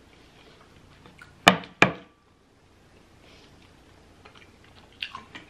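Two sharp knocks of a hard object against the table, about a third of a second apart, with faint small mouth and chewing clicks around them.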